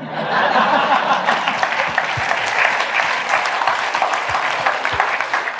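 Audience applauding and laughing after a joke's punchline: dense, steady clapping.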